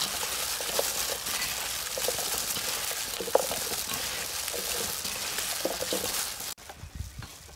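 Gloved hands tossing shredded green papaya salad in a stainless steel bowl: a dense crinkling rustle of thin plastic gloves and crackling shreds, with small clicks against the bowl. It cuts off suddenly near the end, leaving quieter background.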